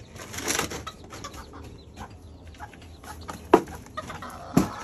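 Chickens clucking, with a short rustle near the start and two sharp knocks about three and a half and four and a half seconds in.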